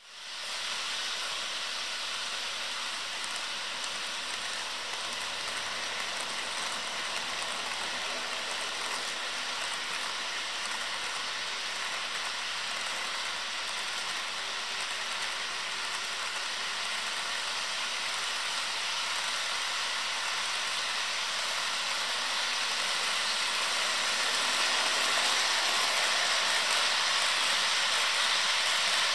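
HO scale model freight trains rolling along the layout's track: a steady hiss of small metal wheels on the rails, growing a little louder over the last several seconds as cars pass close on the near track.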